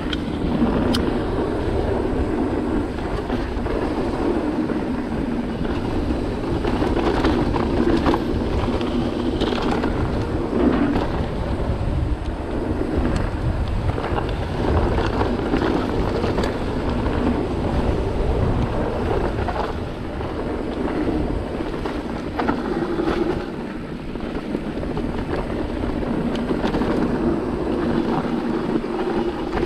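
Cube Stereo 150 TM mountain bike ridden down a dirt trail: a steady rush of wind over the microphone and tyre noise, broken by frequent short rattles and knocks from the bike over the rough ground.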